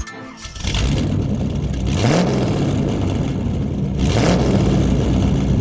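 Car engine idling, blipped twice about two seconds apart, each rev a short rising note that quickly drops back to idle.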